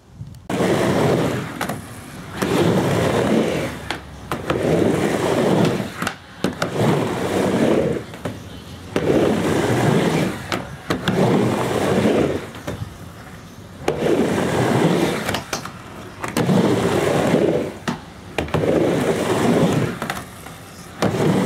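Skateboard wheels rolling back and forth across a mini ramp: a rumble swells with each pass, about every two seconds, with sharp clacks as the trucks and board hit the top of each wall between passes.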